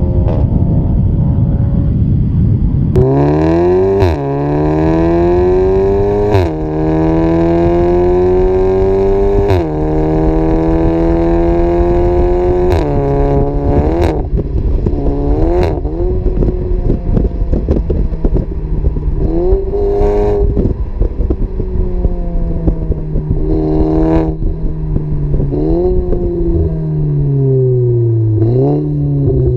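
Audi S3 8V's turbocharged 2.0-litre four-cylinder through a Fi Exhaust valved cat-back with a catless downpipe, heard close to the quad tips under hard acceleration. The note climbs through several gears with a sharp crack at each upshift, then settles to a steady cruise with a few short throttle blips, and drops as the car slows near the end. It opens with a few seconds of loud rushing noise.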